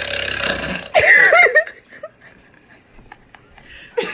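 A person's long burp, already under way, that ends under a second in. A short, loud burst of voice follows about a second in, then only a few faint clicks.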